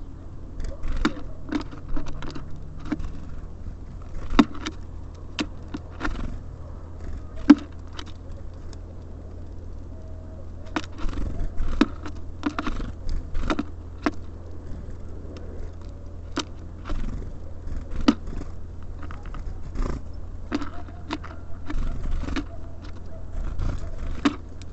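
Small birds, tits and sparrows, at a feeder, pecking and cracking seeds with irregular sharp taps and clicks, some in quick clusters, over a steady low rumble.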